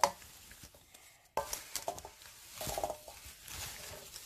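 Wooden spatula stirring chopped lemon pieces coated in salt and sugar in a bowl: uneven soft scrapes and clicks against the bowl, more active from about halfway through.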